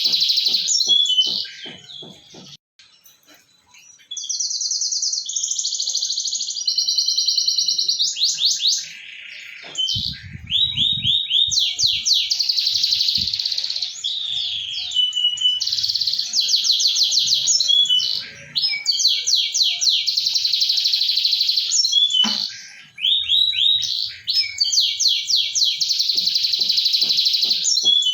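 Canary singing: fast trills and rolls of rapidly repeated high notes, phrase after phrase, with a short pause about three seconds in.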